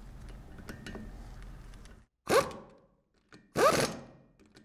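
Metal parts of a Kimray glycol pump handled and set together with light clicks, then two sharp zipping ratchet strokes about 1.3 s apart, each rising in pitch and fading quickly, as the discharge block's bolts are tightened onto the pump body.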